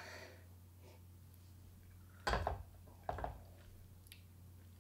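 Two brief noises of tea tasting, about two and three seconds in: small teacups being sipped from and handled, over a faint steady low hum.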